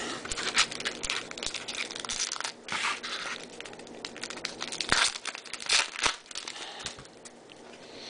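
Foil wrapper of a baseball card pack crinkling and tearing as it is opened by hand, in irregular rustling bursts. The loudest bursts come about five and six seconds in.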